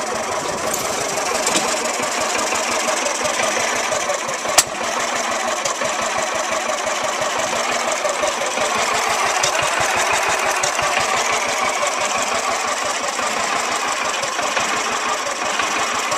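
Riding lawn tractor's small engine idling low and steady, its firing pulses coming fast and even. A single sharp click about four and a half seconds in.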